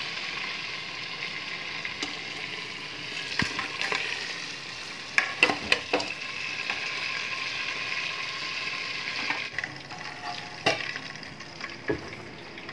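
Mutton pieces sizzling in hot oil in a pressure cooker, fading later on, with sharp metal clinks and scrapes of a slotted spoon against the cooker and steel plate as the pieces are lifted out, a cluster of them about halfway through.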